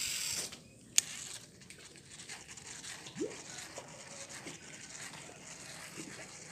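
Casting and reeling in a topwater popper with a fishing rod and reel: a short hiss of line going out, a sharp click about a second in, then the faint even rubbing of the reel being wound, with small blips from the lure on the water.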